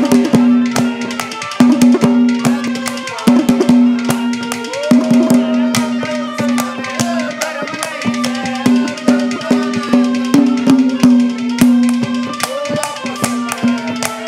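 Instrumental passage of Haryanvi ragni accompaniment: harmonium holding a sustained note, with a wavering melody line above it, over quick, steady strokes on dholak-style barrel hand drums.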